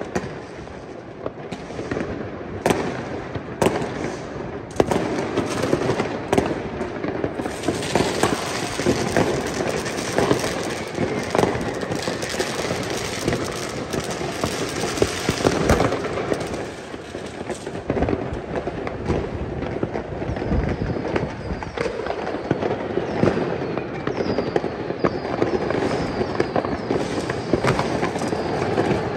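Fireworks going off all across a city: a dense, continuous mix of bangs and crackling from rockets and firecrackers, near and far. Near the end a few short falling whistles join in.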